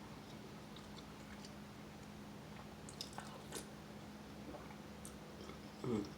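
Quiet chewing and soft mouth sounds of someone eating soup, with a few light clicks about three seconds in and a short, louder low mouth sound near the end, over a faint steady hum.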